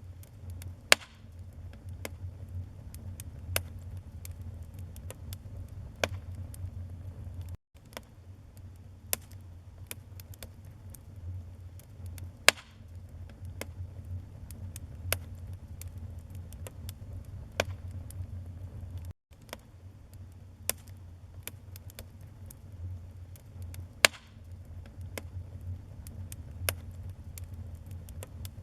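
Wood fire crackling in a fireplace: a steady low rumble of flames under scattered sharp crackles, with a few loud pops. The sound cuts out for an instant twice.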